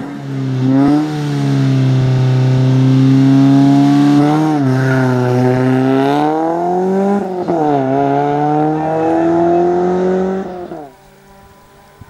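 Rally-prepared VW Golf III engine pulling hard under acceleration, its pitch holding and climbing, then dropping sharply at two gear changes. The sound falls away abruptly near the end.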